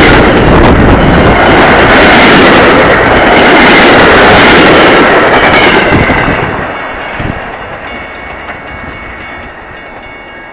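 MBTA commuter rail train passing at speed very close by: a loud, dense rush and rumble of its coaches' wheels and air. About six seconds in the last car goes by and the sound drops away as the train recedes.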